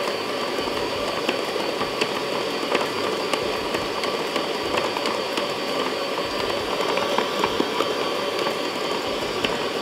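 Electric stand mixer running steadily with its dough hook attachment, kneading a soft yeast dough in a stainless steel bowl.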